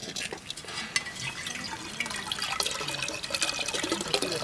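Soaked tamarind pulp squeezed by hand in a steel strainer, with wet squelching and tamarind water splashing and trickling into a steel pot below.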